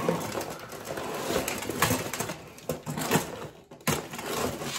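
Rustling and crinkling of a shopping bag and packaging as items are handled, with scattered clicks and a brief lull about three and a half seconds in.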